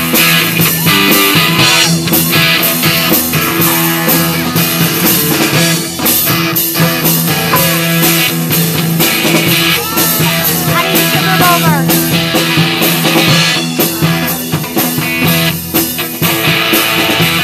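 A rock band playing live: electric guitar and drum kit over a steady beat.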